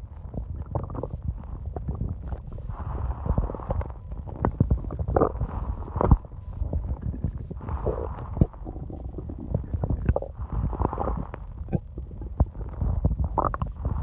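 Human stomach growling: a continuous low rumble with many gurgling pops and squeaks over it.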